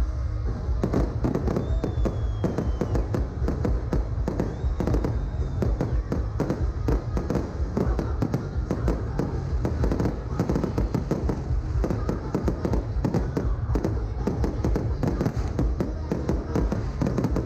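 Fireworks display going off in a dense run of bangs and crackles, with loud music playing over it.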